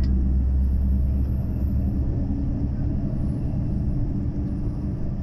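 Steady low rumble of engine and road noise inside a moving vehicle's cabin, with a faint steady hum.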